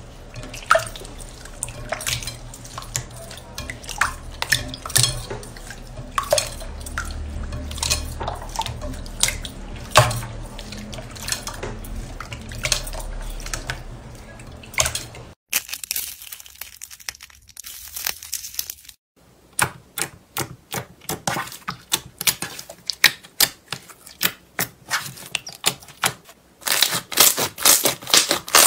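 Hands squeezing and pressing slime, giving wet squelches with sticky clicks and pops. After a short break around the middle, the pops come in a faster, denser run.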